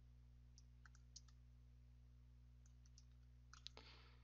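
Near silence: a few faint, scattered computer mouse clicks over a low steady electrical hum.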